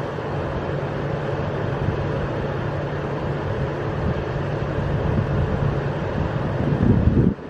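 Commuter train running through the station, a steady low engine hum over rumbling noise that grows louder toward the end and then cuts off suddenly.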